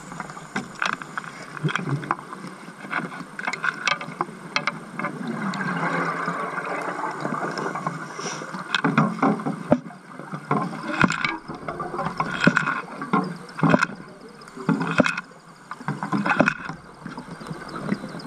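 Underwater hammering: irregular sharp knocks, heard through the camera housing over a steady rush of water noise. The knocks come thicker in the second half.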